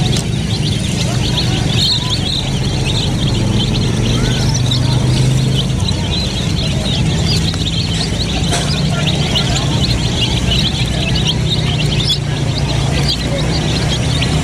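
A flock of domestic chicks peeping without pause, many short high chirps overlapping, over a low steady background hum.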